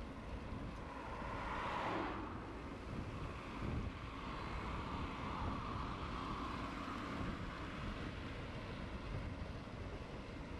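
Wind rumbling on the microphone of a moving bicycle, with road traffic passing; a car goes by about two seconds in.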